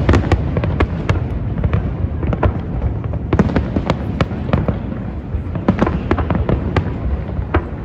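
Fireworks display: a rapid run of aerial shell bursts and crackling pops, several a second, over a continuous low rumble of booms.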